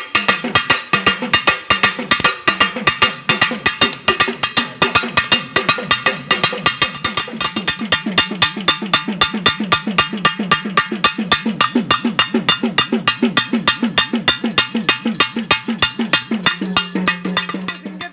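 Folk festival drums beaten in a fast, steady rhythm, about five or six strokes a second, with a ringing tone under the strokes.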